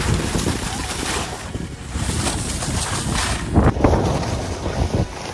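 Wind rumbling on the camera microphone and skis hissing over the snow on a fast downhill run, with a sharper, louder rush about three and a half seconds in.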